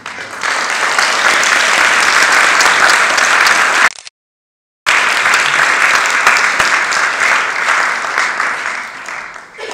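Audience applauding: dense, sustained clapping from a room full of people. The sound cuts out completely for about a second near the middle, then resumes and fades toward the end.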